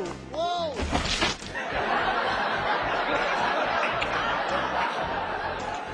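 A crowd of wedding guests reacting with cries and laughter as a tiered wedding cake falls to the floor: a few rising-and-falling voice glides at first, then a dense, steady clamor that fades near the end.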